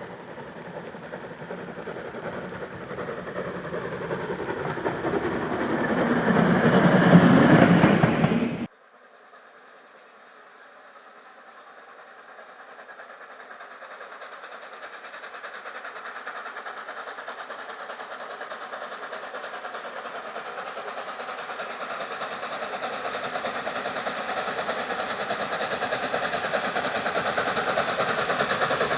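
Steam locomotive hauling a train, growing louder as it draws near, then cutting off suddenly about eight and a half seconds in; a train is then heard again from faint, building steadily louder as it approaches.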